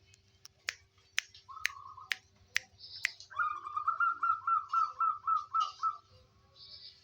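Zebra dove (perkutut) cooing: a short phrase, then a fast run of about ten staccato coos. In the first three seconds there are sharp clicks about twice a second, with faint higher chirps from another bird.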